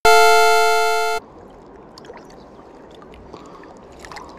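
An electronic chime sound effect holds one bright chord that fades and stops about a second in. After it, the steady rush of a shallow river with a few faint small ticks.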